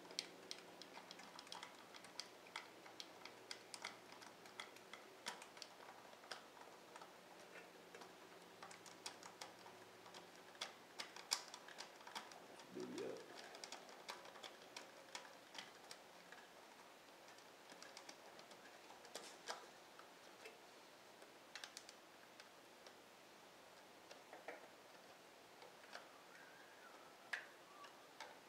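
Faint, irregular small clicks and ticks of hand tools and metal hardware as the ignition coil's mounting bolts are fitted on a Harley-Davidson V-Rod engine. The clicks come thickest in the first half.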